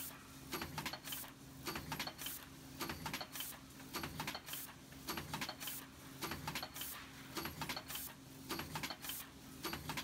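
Aluminium foil container making press with a two-cavity mould running in a steady cycle, about one stroke a second. Each stroke is a quick cluster of clicks and clacks, over a steady low hum.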